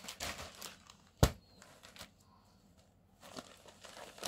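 Cotton sarees being handled and laid out on a cloth-covered table: soft rustling of fabric near the start and again near the end, with one sharp knock about a second in.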